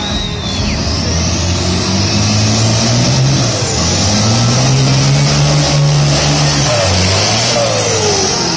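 A race truck's diesel engine held at high revs during a burnout, its rear tyres spinning and screeching. The engine note climbs about three seconds in, holds, and drops back near the end.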